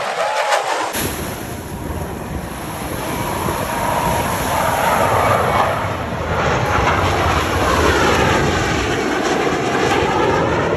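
Jet engine roar of Blue Angels F/A-18 Super Hornets making a low pass, setting in about a second in and swelling and easing as the jets go by.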